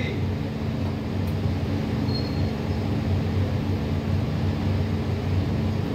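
Steady low mechanical hum with an even rushing noise, as of a running electric motor.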